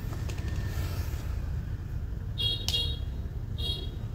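Steady low street-traffic rumble with two short, high-pitched horn toots, about two and a half and three and a half seconds in, and a sharp click between them.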